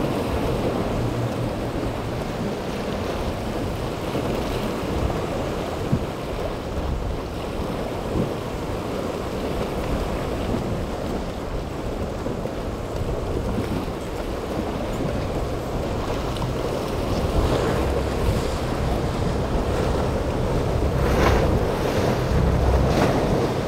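Rough surf washing and breaking through an inlet, with wind buffeting the microphone and boat outboard engines running under it. A few louder splashes near the end.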